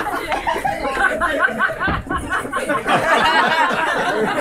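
Audience laughing and chattering, with quick repeated bursts of laughter in the middle.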